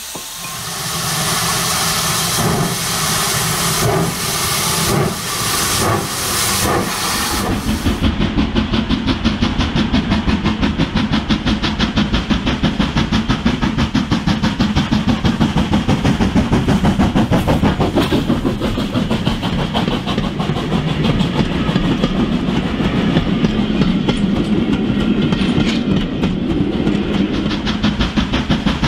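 Model steam locomotives with steam sound: first hissing with slow, spaced chuffs as a BR Standard 4MT model stands with its coaches. Then, after a cut about 8 seconds in, a BR Standard 2MT model's fast, steady chuffing with rail clatter as it runs with its vans.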